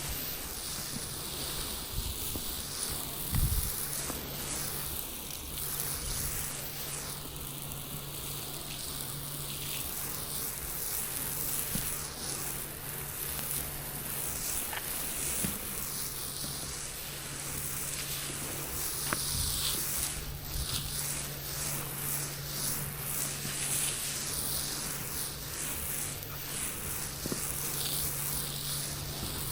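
Soft-wash spray of sodium hypochlorite mix hissing onto concrete, with a steady low hum from the spray rig underneath that drops out briefly twice.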